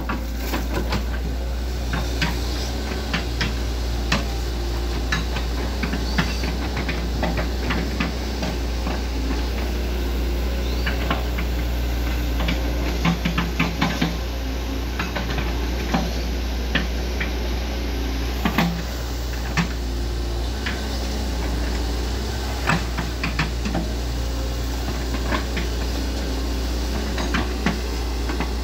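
Hitachi ZX110MF excavator's diesel engine running steadily while the bucket digs and scrapes mud, with irregular sharp knocks and clanks from the working bucket and arm.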